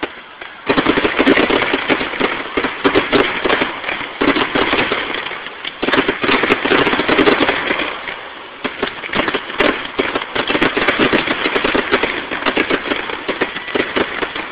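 Aerial fireworks display: a dense, unbroken barrage of rapid bangs and popping, starting abruptly about a second in.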